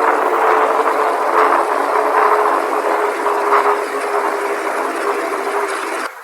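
Very loud emergency-alert alarm: a dense hiss over a few steady low tones, cutting off suddenly near the end.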